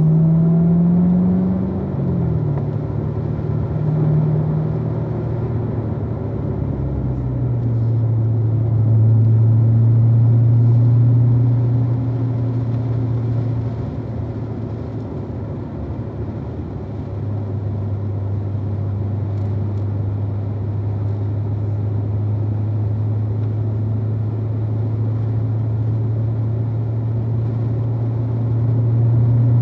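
2016 Corvette Z06's supercharged 6.2-litre LT4 V8 at low revs: the engine pitch climbs briefly, drops sharply about two seconds in, then settles into steady low running.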